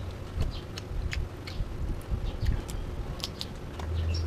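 Eating cooked crab by hand: a scattered string of small, sharp cracks and clicks as the shell is broken apart and the meat is chewed. A low hum underneath grows louder near the end.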